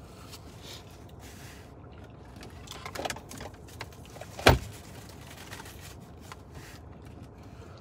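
Car centre-console armrest lid being handled: a short rattle about three seconds in, then one loud, sharp clunk as the lid is shut about a second and a half later.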